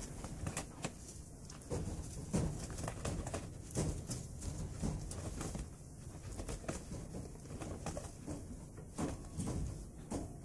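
Prairie dog rustling and tugging at pieces of burlap tree wrap and hay as it gathers nesting material, making irregular scratchy rustles and soft knocks.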